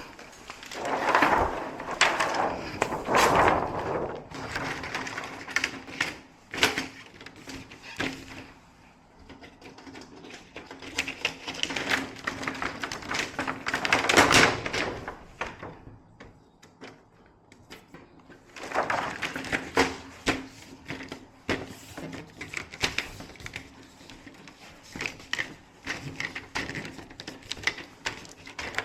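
Irregular clicking and knocking of small hard objects being handled, with several louder swells of rustling and scraping, the loudest about halfway through, over a faint steady hum.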